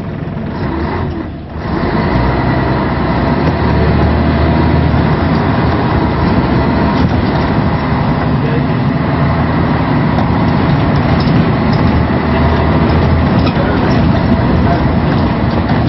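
Scania L113CRL bus's diesel engine running on the road. The level dips briefly about a second and a half in, then the engine runs steadily louder.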